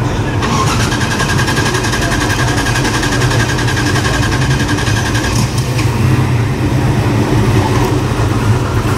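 A classic car's engine running with a steady low rumble as the car drives slowly past. From about half a second in until about five seconds in, a rapid, evenly pulsing high-pitched buzz sounds over it.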